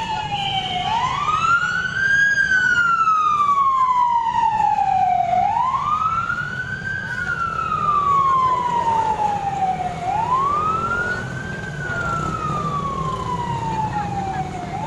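Emergency vehicle siren wailing in slow, regular cycles: each cycle sweeps up quickly, then falls slowly over about three seconds before rising again, roughly three full cycles.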